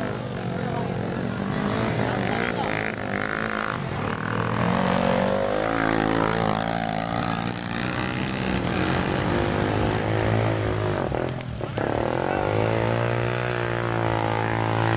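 Small trail motorcycle engine revving hard under load on a loose dirt climb. Its pitch rises and falls through the middle, then settles into a strong, steady drone near the end.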